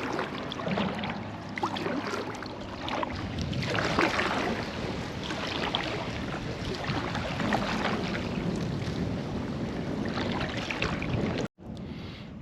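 Water splashing and sloshing against a kayak, with wind rumbling on the microphone and scattered knocks, loudest about four seconds in. The sound breaks off abruptly about a second before the end.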